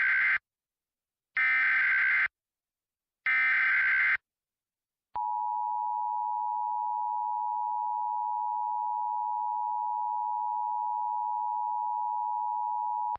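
Emergency Alert System header signal: three bursts of warbling SAME data tones, each about a second long and about a second apart. About five seconds in, the steady EAS attention tone starts and holds for about eight seconds, announcing a new warning.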